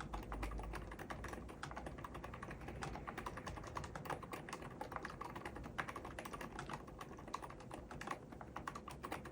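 Typing on an mStone Groove mechanical keyboard with hand-lubricated 38 g Milky switches: a fast, steady stream of keystrokes.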